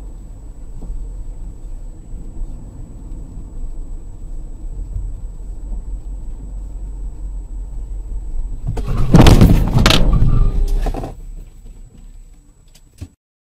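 Steady road and engine rumble heard from inside a car through its dashcam. About nine seconds in comes a loud crash lasting about two seconds: a collision with a motorcycle. The crash then fades, and the sound cuts off with a small click near the end.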